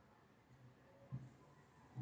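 Near silence, room tone with two brief soft knocks, one about a second in and one at the end.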